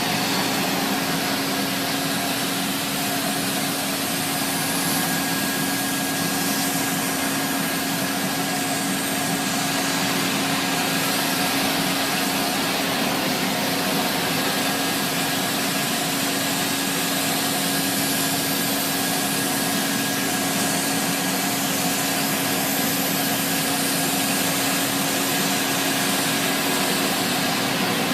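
Vintage Sterilaire canister vacuum cleaner, a relabeled 1950s Eureka Roto-Matic swivel-top with a Lamb electric motor, running steadily. A constant rush of air through the hose sits over a steady motor hum.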